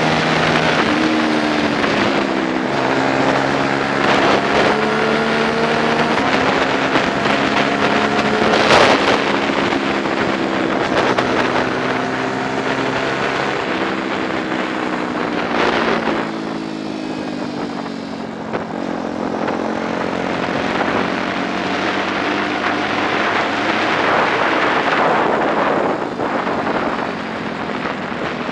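125 cc four-stroke racing motorcycle engine heard from onboard at speed, its note rising and dropping in steps as it is revved through the gears. A steady rush of wind runs underneath, with two brief louder gusts.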